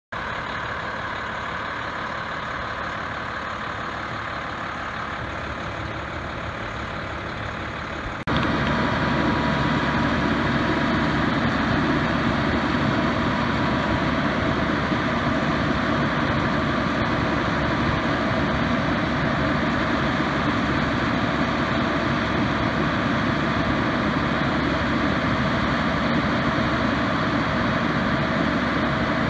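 Aerial ladder fire truck's diesel engine running steadily at a constant speed. The sound jumps abruptly louder about eight seconds in, then holds steady.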